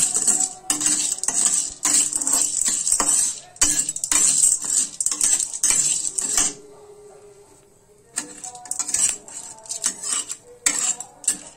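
Metal spatula scraping and stirring unpopped popcorn kernels around a metal kadhai, the hard kernels rattling and skittering on the metal. The stirring is rapid and continuous, stops about six and a half seconds in, and resumes with slower, separate scrapes about two seconds later.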